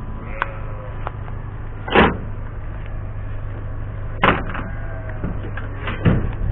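A steady low machine hum with several sharp knocks or bangs scattered through it, about four in all, the loudest about two seconds in.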